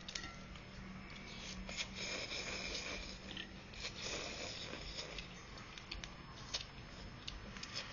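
Someone eating noodle soup: slurps and chewing, with many short light clicks of utensils against the bowl.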